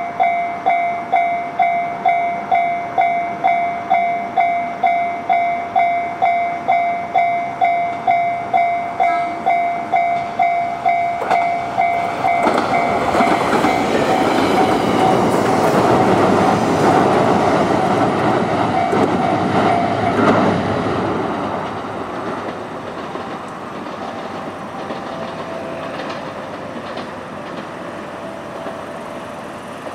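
Railway level-crossing bell ringing at a steady two to three strokes a second. Then a JR Kyushu YC1 series hybrid railcar train passes close by with a loud rumble of wheels and running gear, drowning the bell, and the sound dies down as the train moves off.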